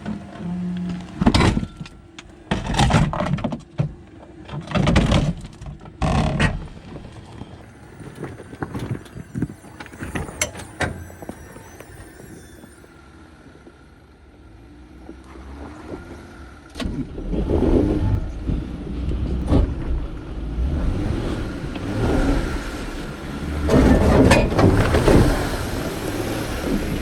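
Off-road 4x4 truck engine revving in several short throttle bursts, then pulling under longer, heavier throttle in the second half.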